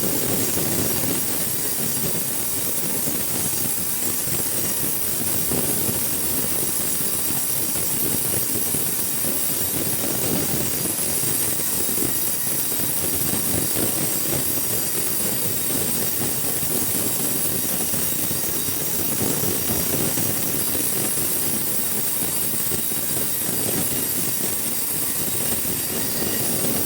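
Sawmill machinery running: a steady, continuous mechanical noise that does not let up.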